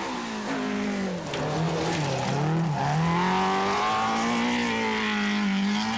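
Talbot Sunbeam Lotus rally car's engine under way: the engine note drops and wavers as the driver lifts off about a second in, then climbs back up about three seconds in and holds steady.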